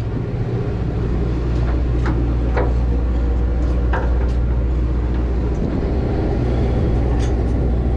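Party boat's engine running, a steady low drone, with a few light clicks scattered over it.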